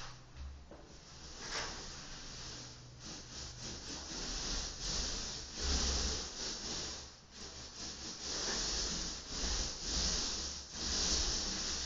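Repeated uneven rubbing strokes against a surface, with a low rumble underneath.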